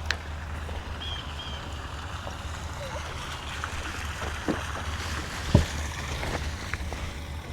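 A steady low rumble, like wind on the microphone, with a few short knocks, the loudest about five and a half seconds in, and faint high chirps near the start.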